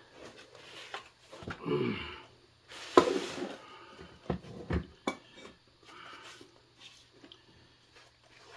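Packaging and parts being handled during an unboxing: a few sharp knocks and clatters with rustling, and a brief breath or grunt from the person lifting them.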